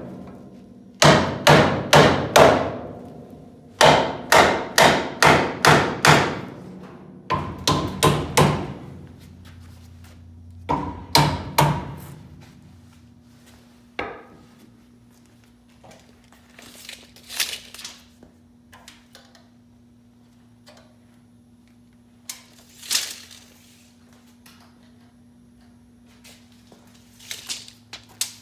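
Hammer blows on the steel shock mount bracket of a car's front frame, in quick runs of four to six strikes with short pauses, each with a brief metallic ring. A few lighter, scattered knocks and clatters follow in the second half.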